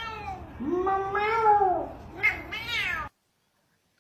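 A cat meowing: one long, drawn-out meow, then two shorter ones, after which the sound cuts off abruptly.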